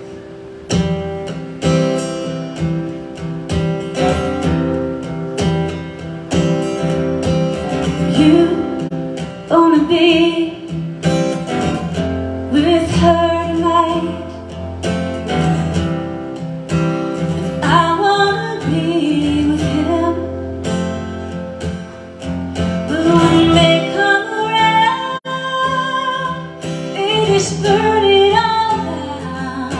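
Live acoustic guitar strumming, with a woman singing over it from about eight seconds in.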